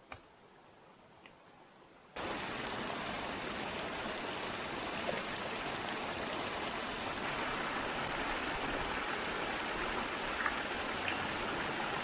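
A small mountain stream cascading over rocks, a steady rush of water that comes in suddenly about two seconds in, after a near-quiet moment with a faint tick or two.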